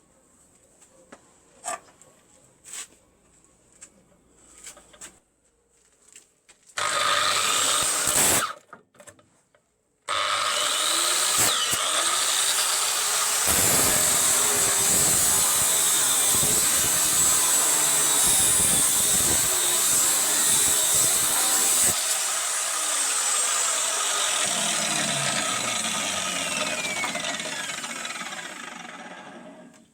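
Angle grinder fitted with a homemade quick-release flange nut: a few faint clicks and knocks of handling, then a short burst of the motor running, then a long steady run of about twelve seconds. It is switched off and winds down, fading with a falling pitch near the end.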